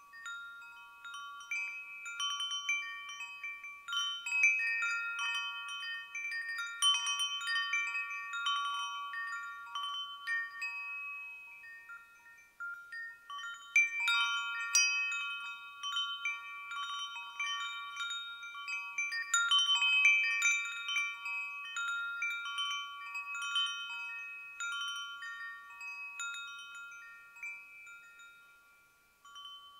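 Wind chimes ringing: a handful of bright fixed notes struck at random in dense clusters. The ringing swells twice and dies away near the end.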